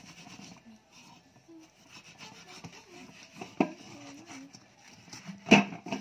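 Fingers rubbing and scraping baking-soda paste over the burnt-on black crust of a metal frying pan, a soft scratchy rubbing. Two sharp knocks come about three and a half and five and a half seconds in, the second the loudest.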